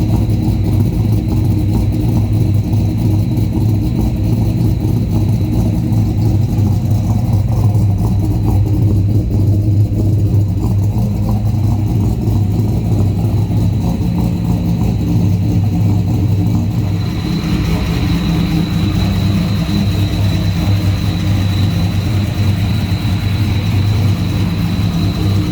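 Turbocharged Holden 3.8-litre Ecotec V6 running at a steady speed through a 4-inch exhaust with a straight-pipe rear section. About two-thirds of the way in, a thin, steady high whine joins the engine note.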